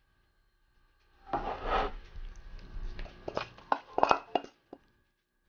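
Kitchen handling noises on a wooden cutting board: a short rustle about a second in, then a quick run of sharp clicks and clinks.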